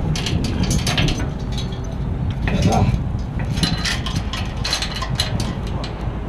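Steel rigging hardware (shackle, chain and hook) clinking and rattling against the steel frame of the pile-driving leads as the rig moves, a run of sharp metal clicks over a steady low engine rumble.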